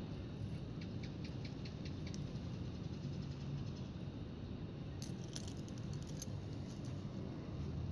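Outdoor background noise: a steady low rumble, with a quick run of light ticks in the first two seconds and a cluster of sharper clicks about five seconds in.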